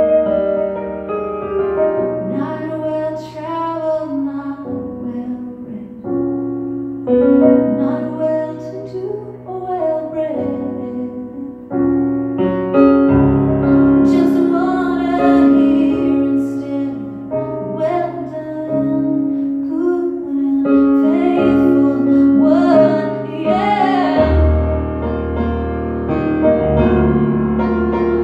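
A woman singing a slow song while playing piano chords on a stage keyboard; her longer held notes waver with vibrato over steady bass notes.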